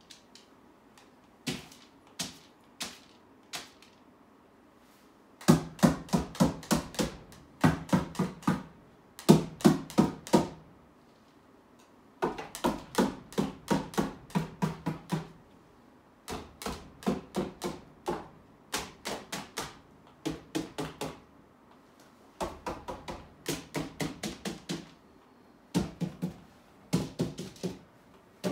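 Rapid tapping of a painting tool dabbing paint onto a wall-mounted art panel, about five or six taps a second in bursts of one to three seconds with short pauses between.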